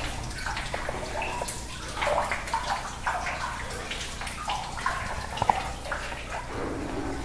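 Legs wading through knee-deep water in a flooded mine tunnel: irregular splashing and sloshing with each step.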